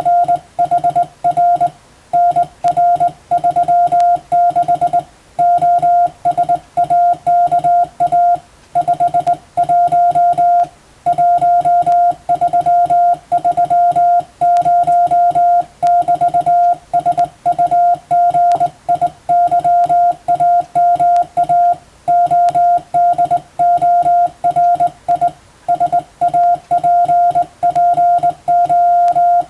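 Morse code (CW) sent by hand on a telegraph key: one steady beep tone switched on and off in short dots and longer dashes, with brief gaps between letters and longer gaps between words, running continuously.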